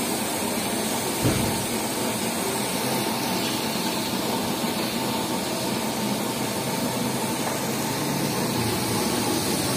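Steady rushing hiss of a restaurant range's open gas burners firing under pans of simmering curry, with one brief low thump just over a second in.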